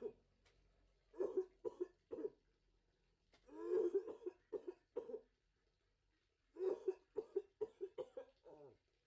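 A man coughing in three fits of several short coughs each, a persistent cough from illness.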